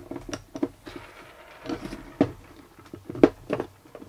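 Scattered light clicks, taps and clacks of a Metabo W 8-125 Quick angle grinder being taken apart, its gear housing worked loose by hand and pried open with a screwdriver.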